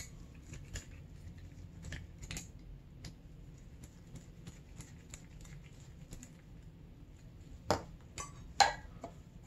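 Light metal clicks and taps of fork parts and hand tools being handled on a workbench, with two louder knocks about a second apart near the end as items are set down.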